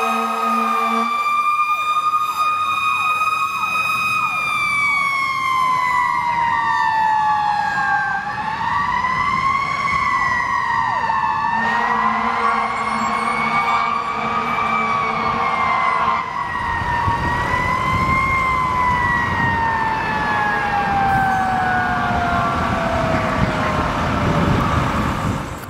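Fire engine's mechanical Q siren wailing: it holds high, swings up and down twice, then winds slowly down in pitch near the end. Air horn blasts sound at the start and again for about four seconds midway.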